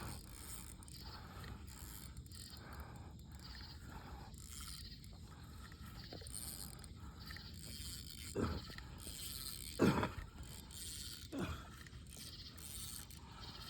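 Fishing reel being cranked with a faint mechanical clicking and whirring, a line under heavy load from a large blue catfish being reeled in. Three short louder sounds break in during the second half.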